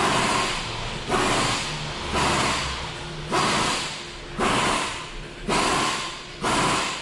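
Rear brake caliper piston being turned back into its bore with a piston wind-back tool in repeated hand strokes: a scraping rasp about once a second, each starting sharply and fading.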